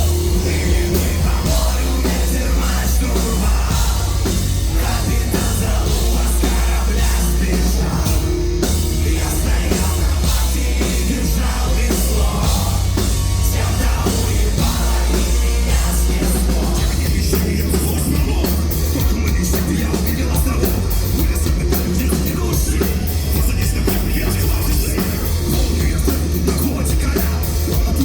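Metal band playing live at a loud, steady level: drum kit, bass and electric guitars.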